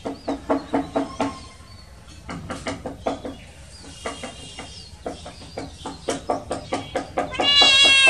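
A cat meows loudly once near the end, a drawn-out call of nearly a second. Before it runs a steady string of short clucking sounds, about four a second, with a few faint high chirps.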